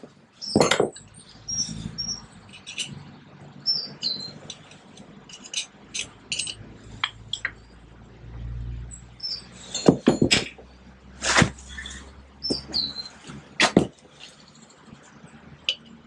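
Irregular metal clinks and knocks of drum brake shoes and return springs being worked onto a 1955 Fordson Major's rear brake backing plate, with a cluster of louder knocks about ten to fourteen seconds in. Short high chirps come between the knocks.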